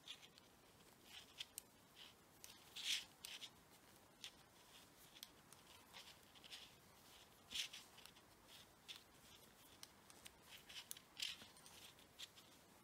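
Faint, irregular clicks and ticks of metal knitting needles tapping together, with soft rubbing of yarn, as knitted stitches are bound off.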